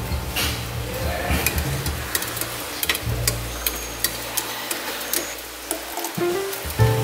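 Stainless-steel mesh strainer of diced green beans clinking against a steel pot as it is dipped into and lifted out of the blanching water, with the water bubbling and sloshing; near the end, water is poured into the pot. Background music plays throughout.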